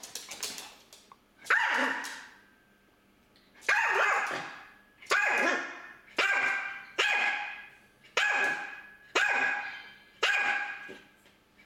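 Small Yorkshire terrier barking eight times at a budgie hidden behind the furniture: a single bark, a pause of about two seconds, then sharp barks about once a second, each ringing out briefly in the room.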